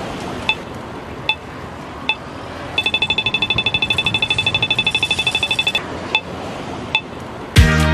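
Accessible pedestrian crossing signal at a traffic light beeping slowly, a little more than once a second, then switching about three seconds in to rapid ticking of about ten a second for some three seconds, the walk phase, before returning to slow beeps. Steady street traffic noise runs beneath, and dance music starts loudly near the end.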